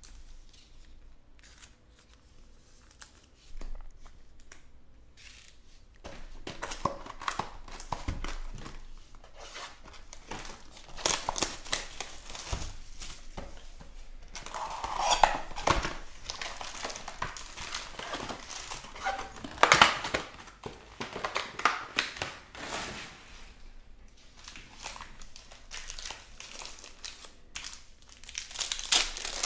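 Rustling and crinkling of cardboard hobby boxes and foil trading-card pack wrappers being handled and torn open, in irregular bursts, busiest in the middle and again near the end.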